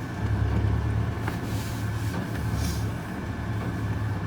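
A vehicle's engine running steadily, heard from inside the cab as a low drone with road noise.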